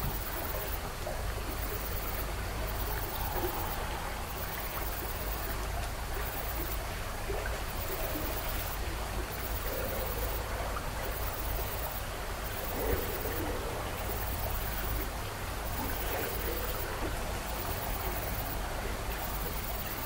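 Steady rushing noise like running water, over a low rumble, with a faint high hiss that breaks off briefly about once a second.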